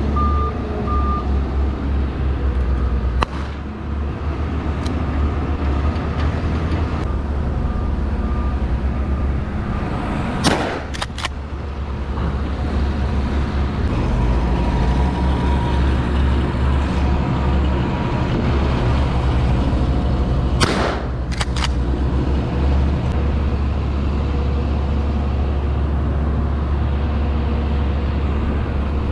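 Diesel farm tractor engine running steadily with a low hum, with a reversing alarm beeping for about the first second. Twice, a short cluster of sharp cracks or knocks cuts through.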